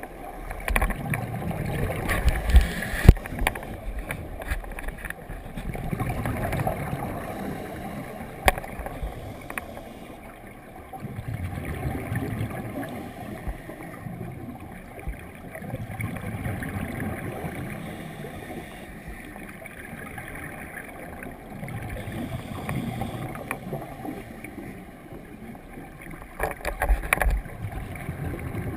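Scuba diver's regulator breathing heard underwater through a camera housing: muffled, rumbling swells of exhaled bubbles every four to five seconds, with a few sharp knocks, one about three seconds in and a cluster near the end.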